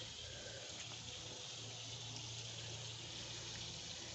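Water from a garden hose spraying onto a soaked shaggy rug to rinse out the soap: a steady, even hiss.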